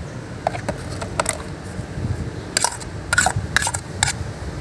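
A metal spoon and lid clinking against a metal pot of cooked rice as it is stirred: a string of short, sharp clicks, most of them in the second half, over a low steady background hum.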